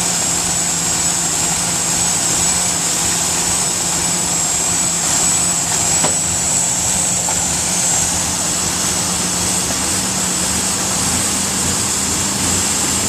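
Ford Ranger 4.0-litre overhead-valve V6 idling steadily, with a thin high whine held over the engine noise. The engine has a vacuum leak at the upper intake manifold.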